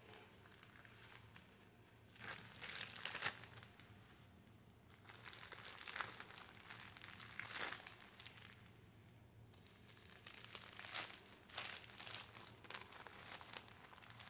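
Faint crinkling and crumpling of a white disposable pad-disposal pouch as it is handled and turned inside out over a menstrual pad, in several short spells with quiet gaps between.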